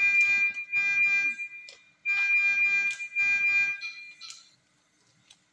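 An electronic equipment alarm sounding a steady high-pitched tone, in two long stretches of about two seconds each with a short break between; it stops a little past four seconds in.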